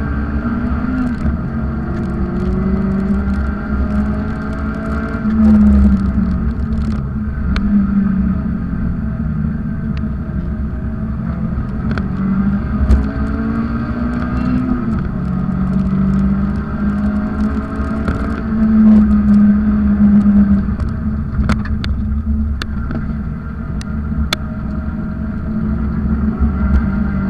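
Mazda MX-5 NC's 2.0-litre four-cylinder engine, fitted with sports cams and a cold-air intake, heard from inside the open cabin while being driven hard on track: the engine note rises repeatedly under acceleration and falls back at gear changes and lifts. Occasional sharp ticks are heard over it.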